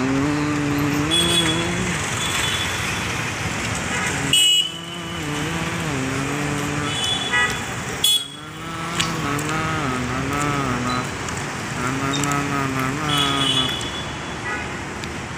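City road traffic with a wavering, tune-like tone running over it, broken by two sharp knocks about four and eight seconds in.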